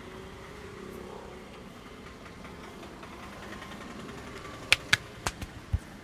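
Joints cracking during a head and neck massage: five sharp pops in quick succession close to five seconds in, the last one a duller knock, over a steady hum of street traffic.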